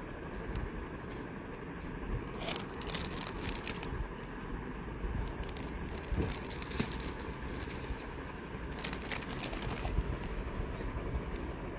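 Clear plastic sleeves crinkling as wrapped miniature artworks are handled and flipped through. There are two spells of crackly crinkling, about two and a half seconds in and again around nine seconds in, over a low rumble of handling.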